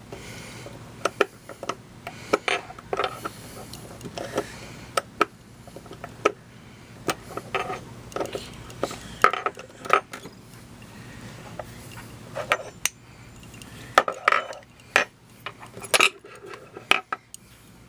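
Irregular metallic clicks, taps and clinks of Mosin-Nagant rifle bolt parts being handled and fitted together during reassembly.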